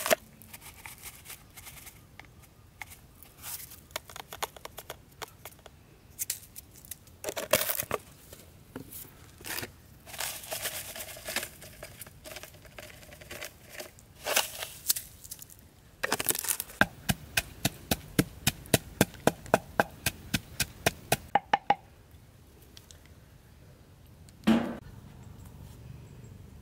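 Food being prepared by hand around a wooden mortar of chilies and salt: scattered rustling and knocks, then a fast, even run of sharp taps, about five a second, for some five seconds in the second half.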